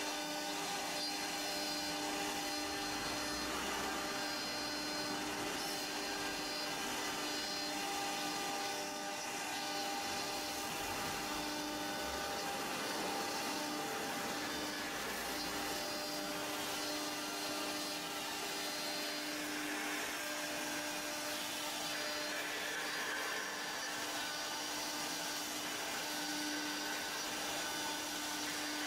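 Rotary-axis CNC router engraving a wooden cylinder: the spindle runs steadily with a whine while the cutter works the wood, with no pauses.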